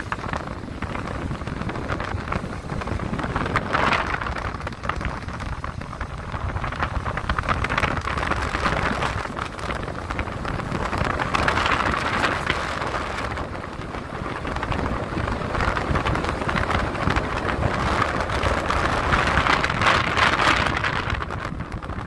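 Road noise of a vehicle driving on a wet road in the rain: a steady low rumble with a tyre-and-rain hiss that swells and fades every few seconds.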